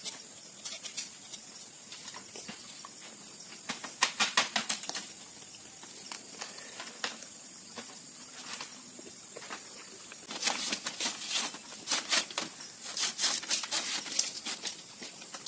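Split bamboo slats clicking and clattering as they are handled and laid into a woven bamboo panel: loose clusters of light knocks, one about four seconds in and a busier run over the last five seconds.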